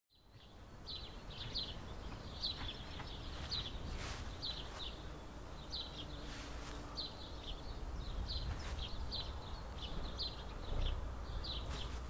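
Small birds chirping in short, often paired calls, repeating every second or so over a low, steady outdoor rumble.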